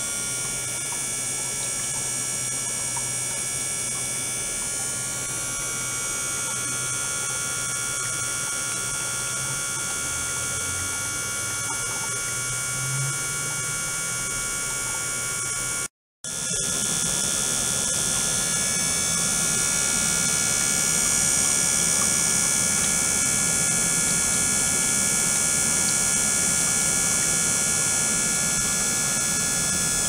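Ultrasonic cleaning rig running: a steady electrical hum with several steady high-pitched whining tones. It cuts out for a moment just past halfway and comes back a little louder, with more low rumble.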